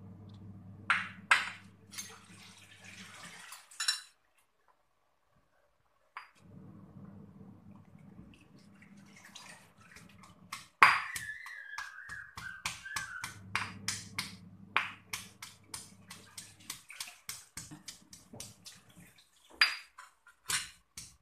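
Stone pestle pounding garlic, shallots, ginger and lemongrass in a stone mortar. A few separate knocks in the first few seconds, then from about halfway a steady run of pounding strokes, about three a second.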